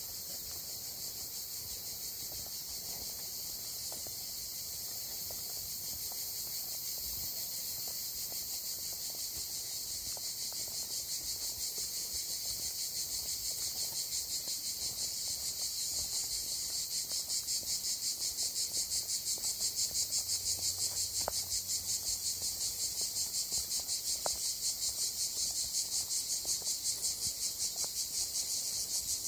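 Chorus of cicadas: a high, pulsing buzz that grows louder toward the end.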